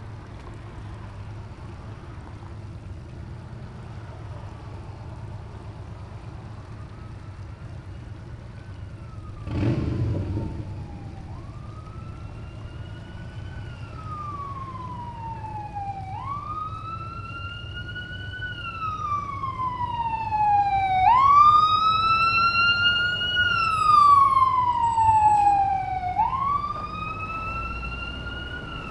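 Emergency vehicle siren wailing, its pitch rising and falling in slow cycles about every five seconds, faint at first and growing much louder through the second half as it draws near. A single thump about ten seconds in, over a steady low rumble.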